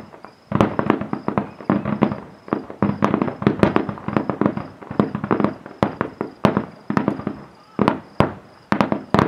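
Aerial fireworks shells bursting in a rapid volley: sharp bangs several a second with crackling between them. The bangs start after a brief lull about half a second in and thin out to a few separate booms near the end.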